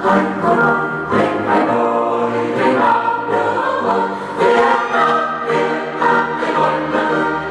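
Background choral music: a choir singing held chords.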